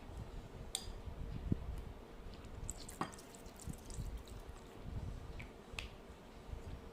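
Slime and water beads being handled and mixed, giving small scattered clicks and soft wet squelches at an uneven pace, over a faint steady hum.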